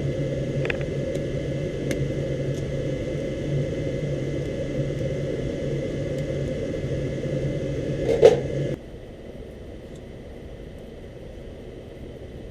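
Rheem 80% gas furnace running with a steady hum and whir, which cuts off suddenly about eight and a half seconds in, just after a brief loud clunk; a fainter steady rush carries on after it.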